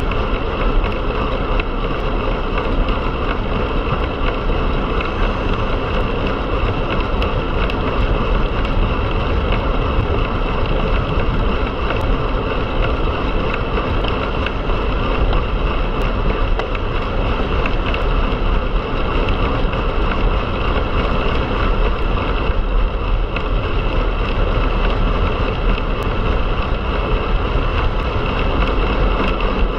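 Steady rush of wind on the microphone with tyre and road noise from a road bike riding at speed. A few faint ticks show through the rush.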